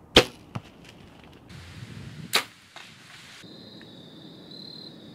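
Two bow shots: each a sharp crack of the bow going off, followed about half a second later by a fainter smack as the arrow strikes. The first comes just after the start, the second about two seconds in, after which a steady high insect trill carries on.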